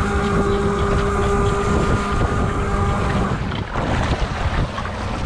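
Fishing boat's engine running at idle under heavy wind noise on the microphone. Its steady drone fades away about three seconds in.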